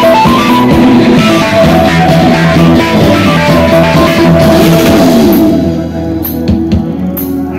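Live rock band playing loud through a PA: electric guitar, drum kit and keyboard. About five and a half seconds in the band drops to a quieter, bass-heavy passage with only a few drum hits.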